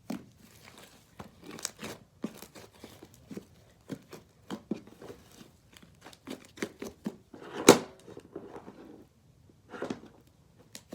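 Slime being squished and pulled apart by hand, giving irregular crackles, pops and small snaps, with one louder snap about three-quarters of the way through.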